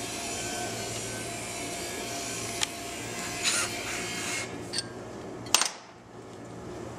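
Cordless drill running steadily with a cutting tool turning forward in a transmission servo bore, the metal rubbing and whirring, with a few sharp metallic clicks. A loud clack near the end, after which the drill stops.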